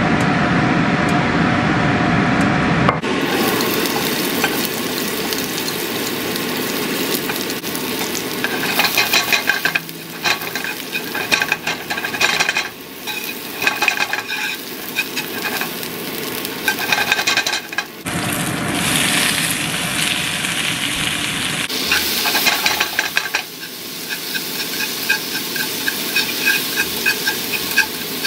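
Onion, garlic and then shrimp sizzling and frying in hot oil in a nonstick pan, stirred with chopsticks, with crackling and clicks throughout. The sound changes abruptly a few times.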